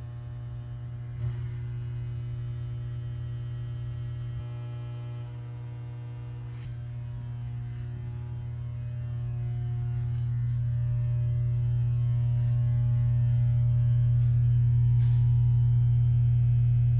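A steady low hum with a string of overtones, growing louder over the second half, with a few faint ticks scattered through it.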